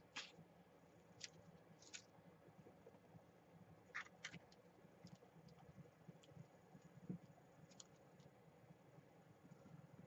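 Near silence with scattered faint clicks and taps of small craft supplies being handled on the work table, a glue bottle and a paper strip among them.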